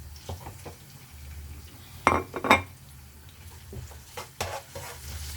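A spoon knocking and scraping against a frying pan as sliced onions and fresh pepper are stirred in, with scattered clinks; two sharp knocks about two seconds in are the loudest.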